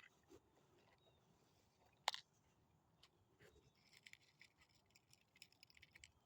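Near silence with faint handling noises from fishing line and terminal tackle being worked while the line is retied. There is one sharp click about two seconds in, then light crackling rustles in the second half.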